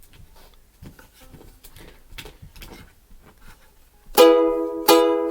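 Faint finger clicks and taps on the strings for about four seconds, then an acoustic stringed instrument strummed loudly twice as the song's opening chords begin.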